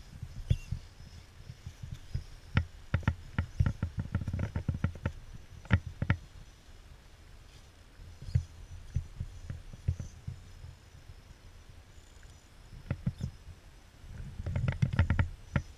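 Axial AX10 RC rock crawler's tyres and chassis knocking and scraping on stone slabs as it climbs: irregular sharp clacks and dull thumps, densest a few seconds in and again near the end.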